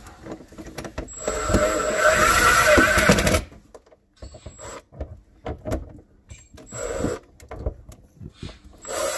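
Cordless drill driving the mounting-ring screws of a garbage-disposal sink flange snug, in short bursts: one run of about two seconds starting about a second in, and a brief second run near seven seconds, with small clicks of handling between them.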